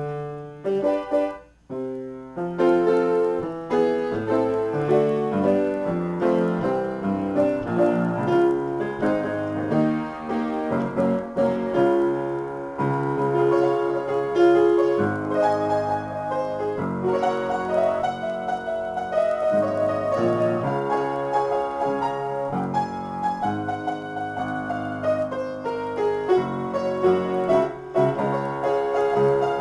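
Upright piano played solo in an improvisation: a few opening chords, a short break about two seconds in, then continuous playing.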